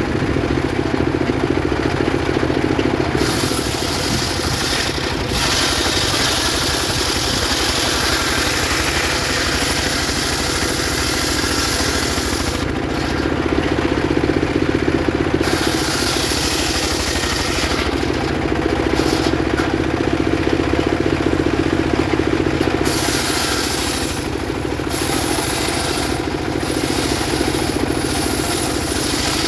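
Homemade engine-driven circular sawmill ripping a teak log lengthwise: a steady engine drone with a loud hissing cutting noise that comes and goes every few seconds as the blade works through the wood.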